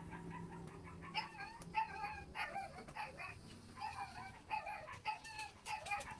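A run of short, repeated animal calls, about two or three a second, fairly faint.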